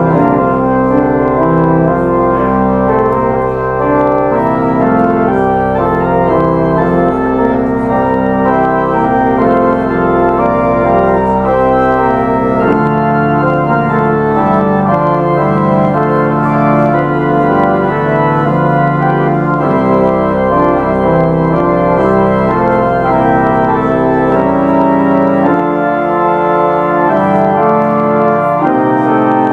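Church organ playing the postlude that ends the worship service: slow, held chords over a sustained bass note that shifts a few times.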